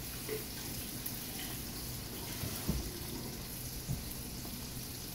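Sockeye salmon fillet frying in olive oil in a skillet: a steady sizzle with scattered small crackles, and a soft knock about halfway through.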